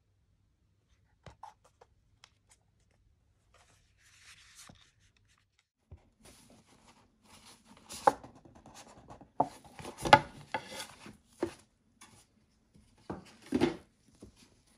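A rigid black watch box is handled by gloved hands. There are faint scattered ticks and scratching at first, then from about six seconds in, rubbing and scraping of the box with several sharp knocks and taps against the desk, the loudest about eight and ten seconds in.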